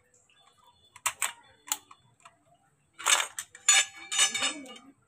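Baby swing frame tubes and plastic fittings clicking and knocking together as they are handled and fitted: a few sharp clicks about a second in, then a busier clatter and rattle of parts in the last two seconds.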